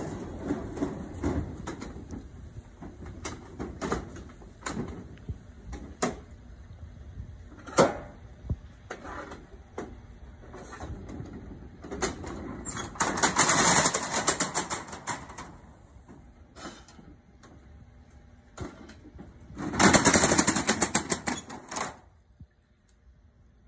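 Accordion hurricane shutter being worked along its track: scattered clicks and knocks at first, then two long stretches of dense clattering rattle, about twelve and twenty seconds in, as the shutter blades are slid and folded back.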